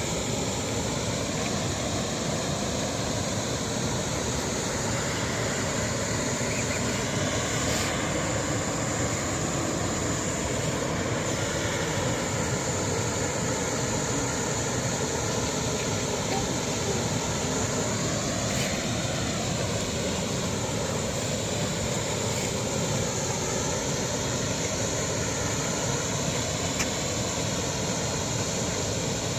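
Steady rushing of a waterfall, an unbroken wash of falling water at a constant level.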